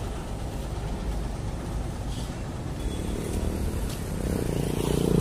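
Road traffic: a motor vehicle's engine running with a steady low rumble, growing louder near the end as a vehicle comes close.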